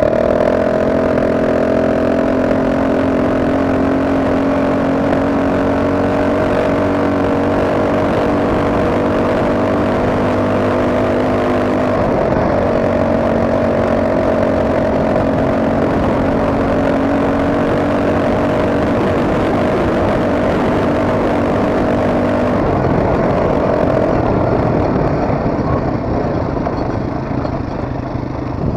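ATV engine running at a steady speed while riding, its note holding even, then easing off near the end.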